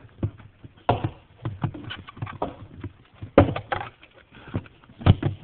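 Irregular knocks and rattles of a Hoover Portable vacuum's hose and parts being handled and tucked back into the machine, with a few louder clunks about a second in, near three and a half seconds, and near the end.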